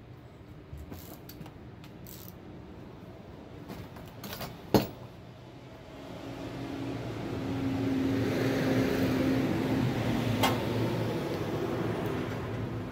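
Small metallic clicks of engine parts and tools being handled, with one sharp clink about halfway through. Then a steady mechanical hum with a low tone swells in and holds, louder than the clicks.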